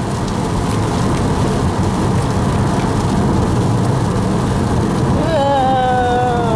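Steady road and engine noise heard from inside a car's cabin as it drives on a wet highway. A drawn-out voice comes in about five seconds in.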